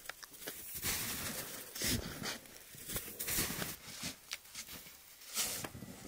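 Snow shovel scraping across the cleared ground and pushing through snow, with a few separate strokes.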